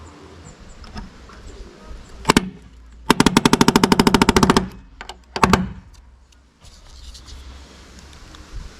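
A power tool hammering in a rapid rattling burst of about a second and a half, with a short burst before and after it.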